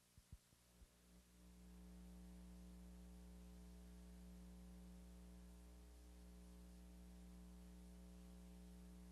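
Near silence: a few faint clicks, then from about a second in a faint, steady electrical mains hum with several overtones.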